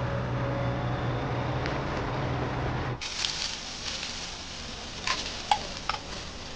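The tail of background music fades out. About three seconds in, meat skewers start sizzling over a charcoal grill, with a few short metal clicks from the skewers and tongs.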